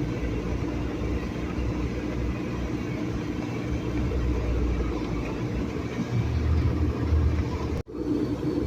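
A vehicle driving slowly up a snowy, rutted dirt track, heard from inside the cab: a steady engine hum and low rumble of tyres and suspension, heavier for a while near the end. Just before the end, all sound cuts out for an instant.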